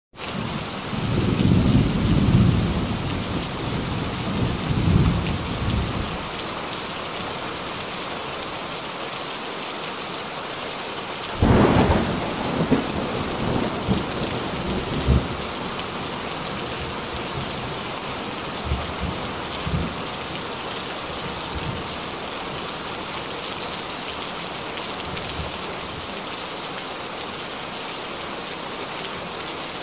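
Heavy rain falling steadily, with thunder rumbling through the first few seconds, a louder thunderclap about eleven seconds in, and a few fainter rumbles after it.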